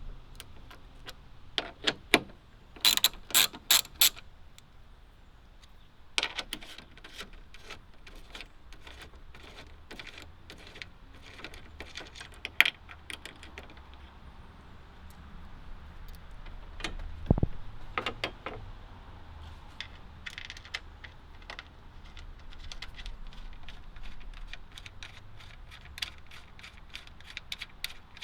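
Ratchet wrench with a 10mm socket clicking in quick runs, undoing the bolts that hold the hood prop, with a cluster of louder sharp clicks about three to four seconds in and a single dull knock later.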